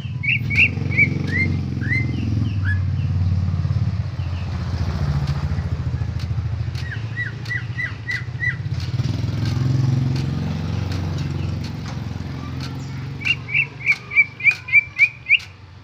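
Greater green leafbird (cucak ijo) calling in short, sharp falling chirps. There are a few at the start, a quick run of about six notes around the middle, and a fast, loud series of about nine notes near the end. A low engine rumble runs underneath until about twelve seconds in.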